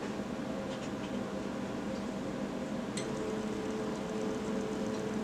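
Stepper motors of a CNC rig's X, Y and Z stages starting a coordinated G1 move about three seconds in: a click, then a steady whine with a fine ticking, over a steady hum.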